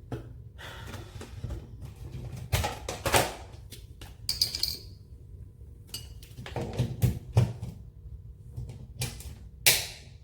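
Handling noises: a series of clicks, knocks and rustles as a hot air brush dryer and its cord are handled, over a faint steady low hum. The dryer itself is not running.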